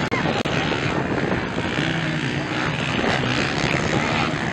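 Motocross dirt bike engines revving hard as the bikes race, with a brief dropout in the sound about half a second in.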